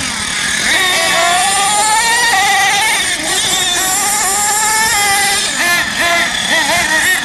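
Small nitro engine of a radio-controlled Thunder Tiger MTA4 monster truck revving as it drives, its whine climbing and dropping with the throttle, with a long slow rising pull between about one and five seconds in.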